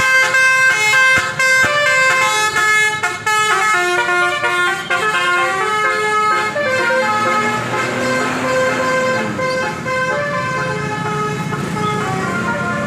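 Basuri telolet bus horn playing a quick melody of stepped multi-tone notes, loudest in the first few seconds, over the low rumble of the bus engine.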